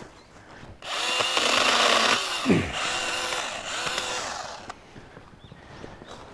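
Makita MUC101D 18V cordless handy chainsaw cutting a branch for nearly four seconds, starting about a second in. Its motor whine drops sharply in pitch partway through as it slows in the wood under load.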